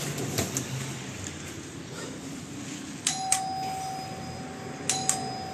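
Electronic doorbell pressed twice, about two seconds apart: each press a click followed by a held chime tone, the second chime stepping a little lower in pitch.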